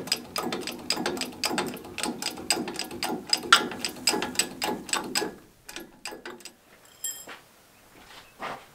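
Hydraulic bottle jack being pumped by hand, a quick, even run of metallic clicks that stops about five and a half seconds in, followed by a few scattered knocks.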